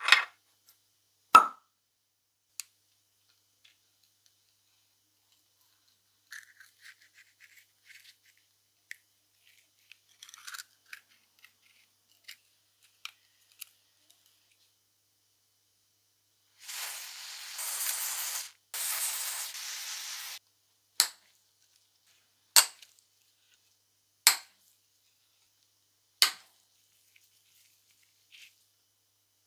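Metal parts of a Keyang PHD-38 hammer drill's gearbox being taken apart by hand: two sharp metal clinks at the start, scattered light ticks, then about four seconds of scraping in two long strokes past the middle. Four more separate sharp clicks follow, about two seconds apart.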